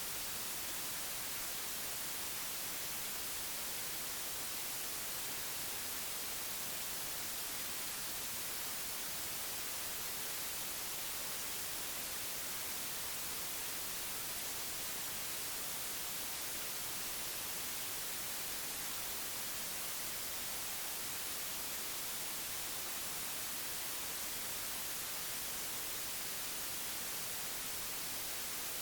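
Steady white noise: an even, unbroken hiss with the most energy in the highest pitches, unchanging throughout.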